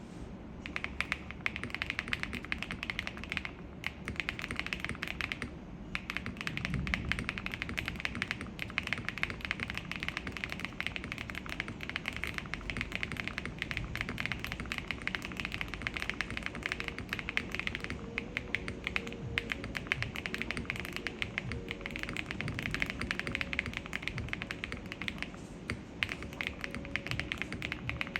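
Fast, continuous typing on a QK80 MK2 mechanical keyboard with SW x Keygeek Tori linear switches, an FR4 plate and full foam: a dense stream of key presses, with brief pauses a few seconds in. Quiet music plays underneath.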